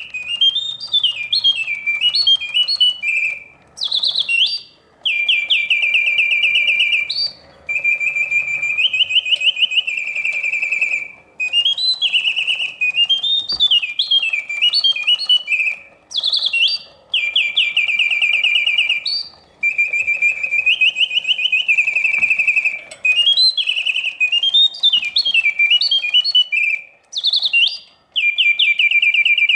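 Vintage Reuge double singing bird cage's bellows-and-whistle mechanism singing on its continuous setting: a mechanical birdsong of warbling swoops and rapid trills, with only brief breaks, the same song sequence repeating about every eleven seconds.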